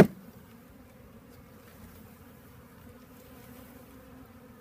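A mass of package honeybees buzzing as a steady low hum, with one sharp knock at the very start.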